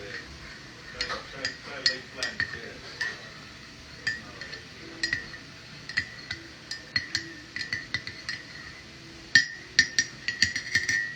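Irregular sharp taps and clinks, each with a short ringing tone, coming every half second or so and bunching into a quick run of strikes near the end.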